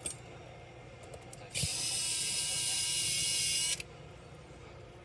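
A can of compressed air spraying in one steady hiss of about two seconds, which starts and stops abruptly, with a few light clicks of handling before it.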